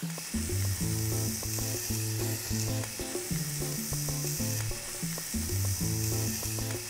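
Oil sizzling in a stainless-steel sauté pan where floured chicken has been browning, a steady hiss. Background music with a bass line stepping between notes plays along with it.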